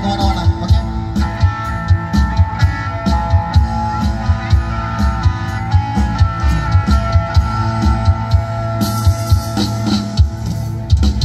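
Band music with a steady drum beat, played through a line-array PA system with four boxes per side and heard from about 100 metres away.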